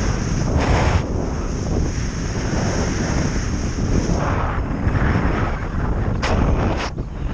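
Strong wind rushing over the microphone in flight on a speedwing: a dense, buffeting low rumble with a steady high hiss on top that fades about four and a half seconds in, and a few brief gusts that briefly brighten the noise.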